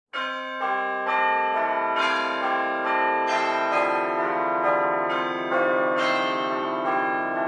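Bells ringing a sequence of pitched notes, a new note struck about every half second, each ringing on and overlapping the next.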